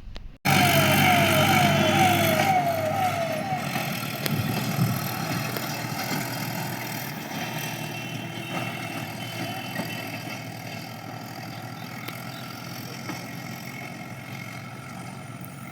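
Vehicle siren sounding in quick falling yelps, about two a second, for the first few seconds over the noise of running vehicle engines. The engine noise then slowly fades away.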